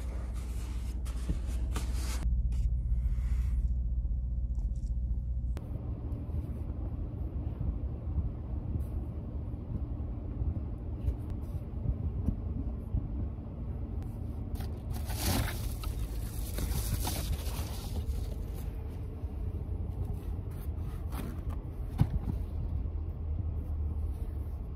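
Rustling and rubbing of a blanket being folded and a paper towel wiping condensation off a car's side window, over a steady low rumble, with a louder stretch of rubbing about fifteen seconds in.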